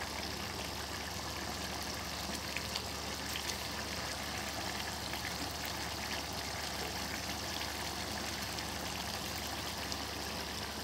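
Chicken karahi gravy simmering in a wok, a steady bubbling hiss, with a few light clicks of a wooden spatula against the pan between two and three seconds in.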